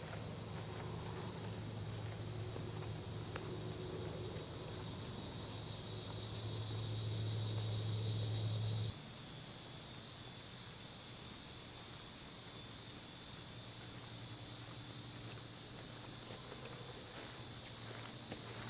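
Steady, high-pitched chorus of insects droning in the woods. It swells slightly, then drops abruptly in level about nine seconds in, and carries on steadily after.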